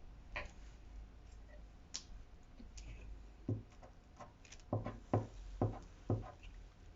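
Paper craft pieces being handled, folded and pressed onto a tabletop: a few light paper rustles and clicks, then about five soft thumps of the hand pressing down in the second half.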